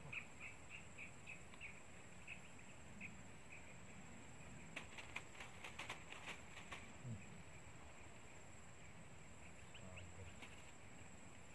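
Faint outdoor quiet with a small animal's high chirping call, short chirps about four or five a second, fading out within the first few seconds. A brief run of sharp clicks comes about midway.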